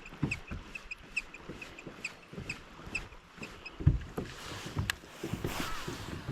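Choppy wind-driven water slapping against the hull of a fishing boat, with gusts of wind buffeting the microphone in irregular low thumps. A light, regular ticking runs about three times a second for the first few seconds, then stops.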